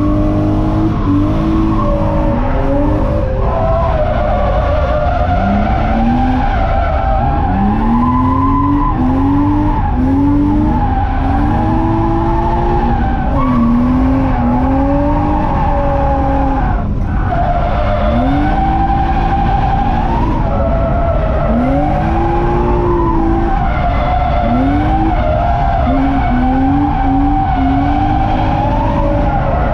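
BMW E30's M50B25 non-VANOS straight-six being driven hard, heard from on board. The revs climb and drop back again and again, every second or two, while the tyres skid.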